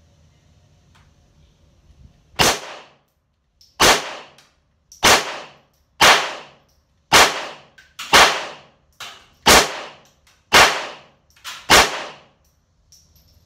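Handgun firing nine shots at a steady pace of about one a second, starting a couple of seconds in, each with a short ringing tail, and a few fainter pops between them.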